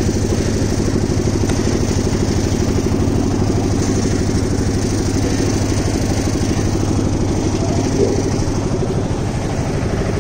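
An engine running steadily at an even speed, with a fast, regular pulse.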